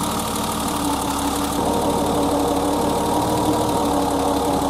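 BMW E30 engine idling steadily with its airflow meter unplugged, running on a stored airflow-sensor-circuit fault (code 07). It gets slightly louder about a second and a half in.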